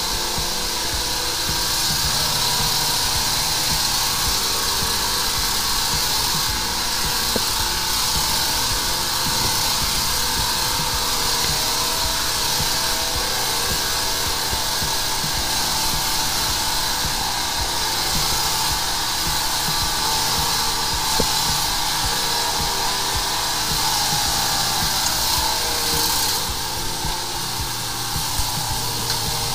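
High-pressure sewer jetter running steadily: the pump's drone under a continuous hiss of pressurised water forced through the jetting hose to clear a blocked drain.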